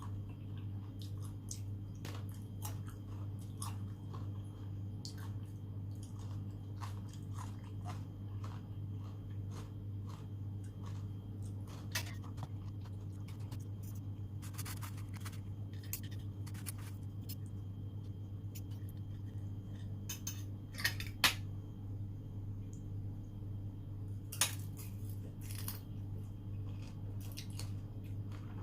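Close-miked chewing and wet mouth sounds of someone eating raw seafood, with many small sharp clicks and a few louder ones, over a steady low hum.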